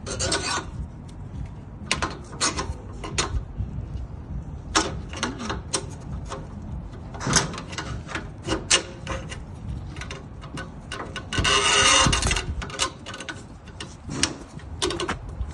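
Metal door hardware being handled: scattered sharp clicks, knocks and clinks, with a rough rushing noise about a second long near the end.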